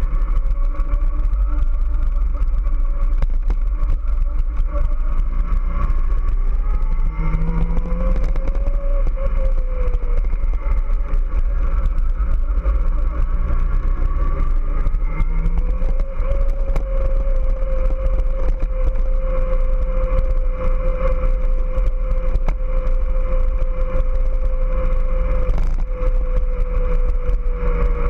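Kawasaki ZX-14R's 1441 cc inline-four engine running on the move, with heavy wind buffeting on the camera microphone. The engine note rises and falls about a third of the way in, dips again around halfway, then holds steady.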